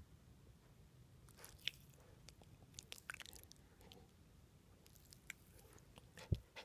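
Faint, scattered wet clicks and smacks from a Shiba Inu puppy's mouth as it works its jaws and lips, with a dull thump near the end.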